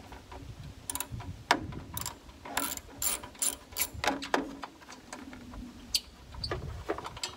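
Socket ratchet with a 12 mm socket loosening a bolt, its pawl clicking in short irregular runs as the handle is swung back and forth. The clicks are thickest around the middle.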